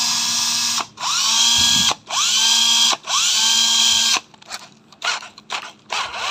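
Cordless drill motor run in repeated trigger pulls: four runs of about a second each, each whining up to speed at the start, then several short blips and one last run near the end. The drill is being run on a used Hitachi 14V battery pack to test it.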